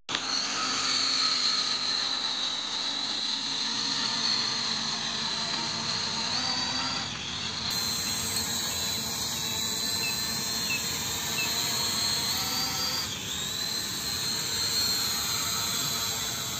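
E88 toy quadcopter's small electric motors and propellers whining in flight, a steady high-pitched buzz whose pitch drifts up and down as the drone is steered.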